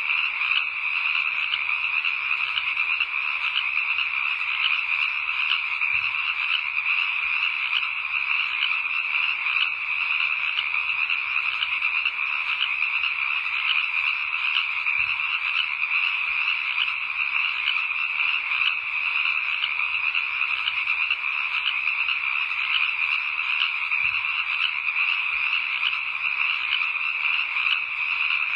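Dense, steady chorus of calling frogs, many voices overlapping with no pause.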